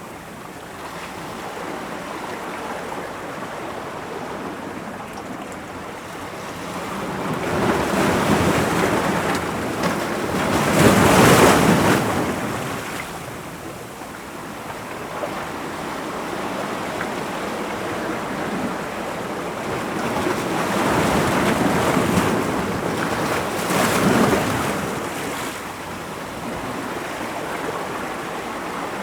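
Ocean surf washing against rocks. A steady rush of water swells into two big surges, the loudest about a third of the way through and a second one later on.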